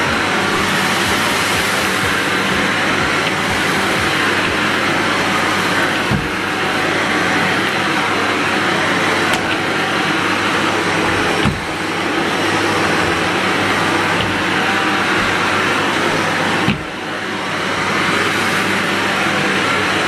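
Shark upright vacuum cleaner running on carpet: a steady motor whine and suction rush with a low hum. Three brief knocks come through, each followed by a short dip in the sound.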